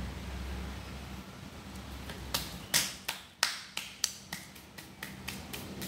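A hand knocking and tapping on the wooden panels inside a subwoofer box: about a dozen sharp, irregular knocks starting about two seconds in.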